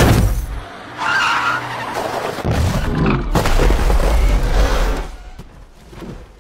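A car in a film chase: a sudden loud crash, then several seconds of engine noise and skidding that fade out about five seconds in.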